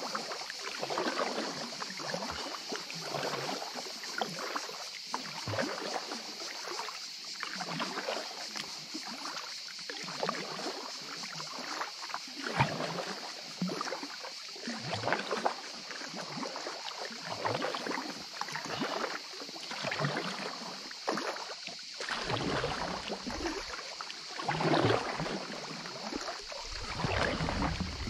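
Kayak paddle strokes dipping into calm water from an inflatable kayak, a splash and drip about once a second. A low rumble joins in over the last few seconds.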